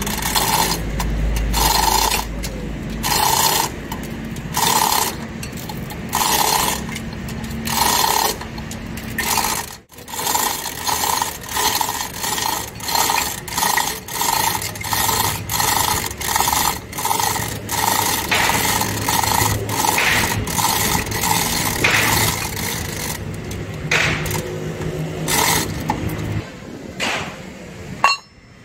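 Hand-worked metal ratcheting and chain rattle on a chain-hung truck rear-axle differential, in even, repeated strokes. The strokes come about once every second and a half, then, after a short break, quicker at a little over one a second. A faint low steady hum sits underneath.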